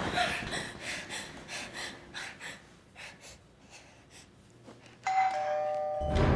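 Two-tone ding-dong doorbell chime sounding about five seconds in, a higher note followed by a lower one, both held ringing. Before it, a run of faint pulses fades away.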